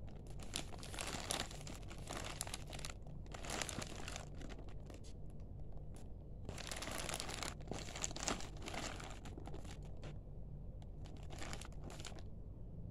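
Clear plastic film wrapping a 12-roll pack of toilet paper crinkling as hands grip and turn the pack over. The crinkling comes in several bursts, the longest around the middle.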